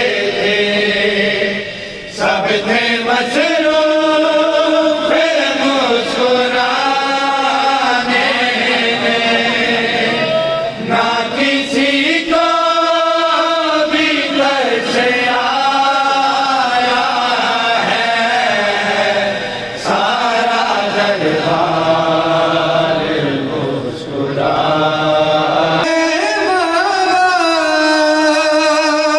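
Men chanting a noha, an Urdu Shia mourning lament, in long melodic phrases with short breaks between them.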